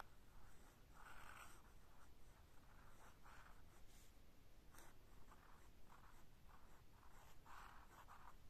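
Faint scratching of a 1948 Omas Ogiva Extra fountain pen's flexible nib on Fabriano Schizzi sketch paper, a run of short strokes as cursive letters are written.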